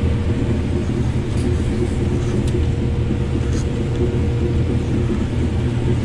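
Combine harvesting corn, heard from inside the cab: a steady low drone of engine and machinery with a constant whine above it.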